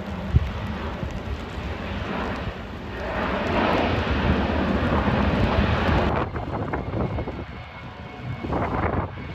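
Airliner on a wet runway, engines and spray making a loud rushing noise that swells about three seconds in and drops off abruptly around six seconds, with a short rise again near the end. A brief sharp knock sounds just under half a second in.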